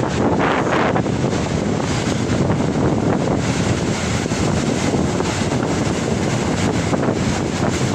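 Rough sea surf breaking and washing, with strong wind buffeting the microphone.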